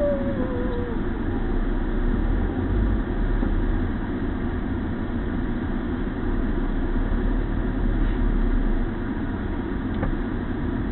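Car engine and tyres heard from inside the cabin as the car rolls slowly forward, a steady low rumble.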